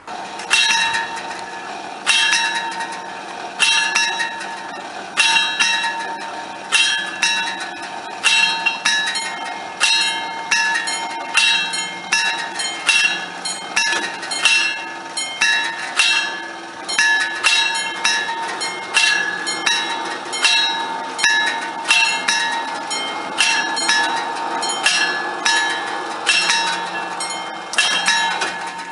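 Italian railway level-crossing bells ringing, a mix of FS 64 and TD 96/2 bell types, warning that a train is approaching. The rapid metallic strikes start suddenly and overlap out of step, each with a ringing tail.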